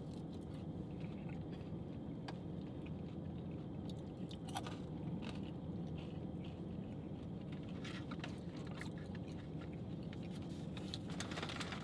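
People chewing fast food close to the microphone, with scattered light clicks and rustles of food packaging, over a steady low hum in the car cabin.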